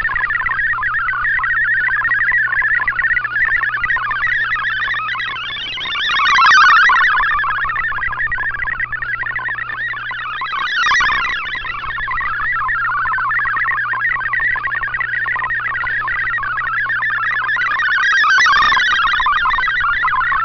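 MFSK64 digital data signal received on an Icom IC-R8600 shortwave receiver: a rapid warble of many shifting tones, with a steady low hum beneath. The signal swells louder briefly three times: about six, eleven and eighteen seconds in.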